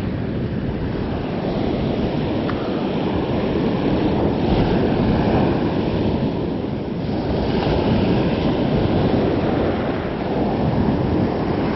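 Shore-break surf washing up and back over the sand at the water's edge, a steady rush that swells twice as waves come in, with wind buffeting the microphone.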